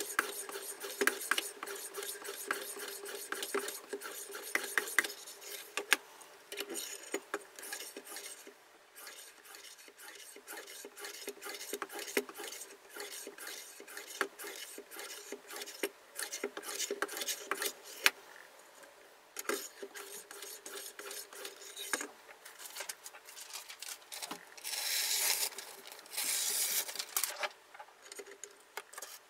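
A diamond sharpening bar scraping along a steel knife blade clamped in a sharpening jig, a busy run of quick gritty strokes and small metallic clicks. Near the end come two longer, louder hissing scrapes.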